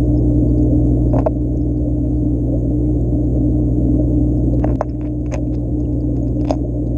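Steady low electrical hum of aquarium equipment heard through the tank water. A few sharp clicks come about a second in and several more in the last two seconds.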